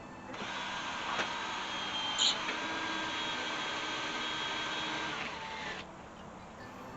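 Electric drill running for about five seconds, drilling a rivet hole in the screen door hinge, with a short sharp sound about two seconds in; its pitch drops as it winds down and stops.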